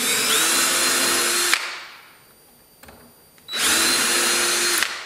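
Cordless drill with a Vix self-centering bit drilling pilot holes for hinge screws in walnut: two runs of about a second and a half each, each rising quickly to a steady whine.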